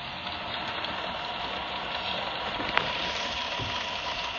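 Model diesel locomotive and bilevel commuter cars running along the layout track: a steady rolling hiss with a faint even hum, and a single sharp click about three seconds in.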